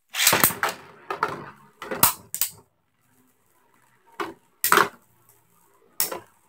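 Metal Beyblade tops, Fang Leone and Pegasus, in a plastic stadium: a burst of rattling as a top is launched in, then sharp metallic clacks as the spinning tops collide, about six separate hits spread out with short quiet gaps between.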